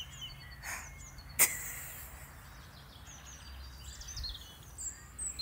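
Small birds chirping and singing over a low steady rumble, with one sharp knock about a second and a half in.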